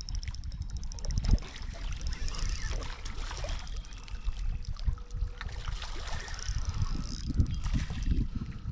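Gusty wind rumbling on the microphone, with small water splashes and clicks as a hooked bass is reeled in.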